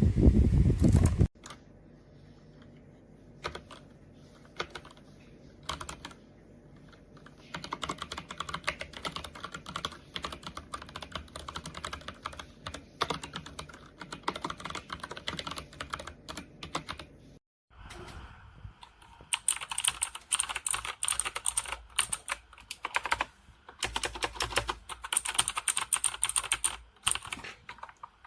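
Typing on a Meta K108 mechanical keyboard: rapid runs of sharp key clicks, sparse at first and then dense, with a brief pause about 17 seconds in. A louder noise runs through the first second or so.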